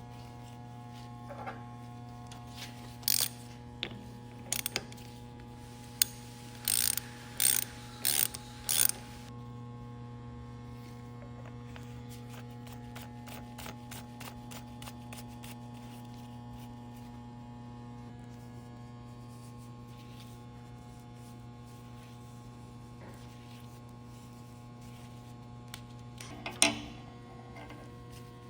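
Milton Roy MR-B metering pump running on test: a steady motor hum with a fast mechanical ticking from its drive. A handful of sharp clicks come in the first nine seconds, and one more near the end.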